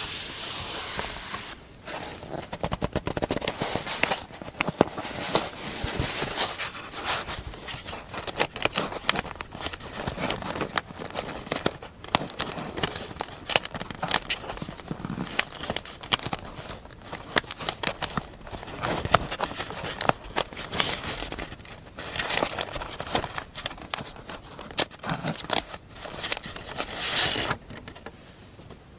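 Close-up paper handling for scrapbook journaling: paper rustling and crinkling with many small clicks and taps.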